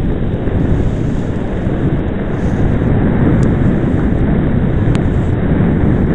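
Loud, steady rush of wind buffeting the microphone of a camera mounted on a hang glider in flight, with a short click about five seconds in.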